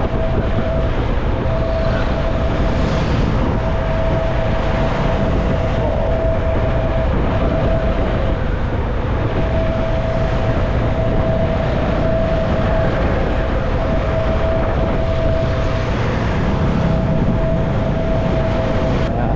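CFMoto 250NK single-cylinder motorcycle being ridden at a steady speed: a steady engine note under heavy wind and road noise.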